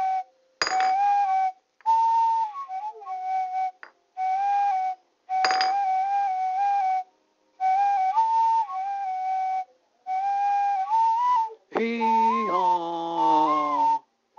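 A solo flute melody in short phrases of a few notes, broken by brief pauses, with two sharp clinks, about a second in and around five and a half seconds. Near the end a lower, fuller pitched sound enters and glides downward.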